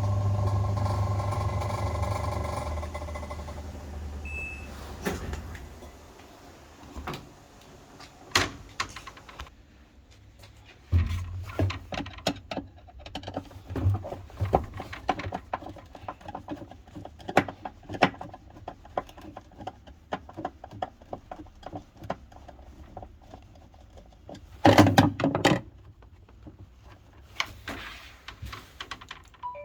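Top-loading washing machine running with a motor hum that fades over the first few seconds, followed by irregular clicking and knocking over a low hum and one louder clatter near the end. This is the noise the machine makes when washing, and it is what is being diagnosed.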